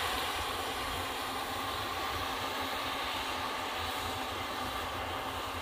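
Yanmar YH850 combine harvester running steadily, a constant machine drone with a low rumble.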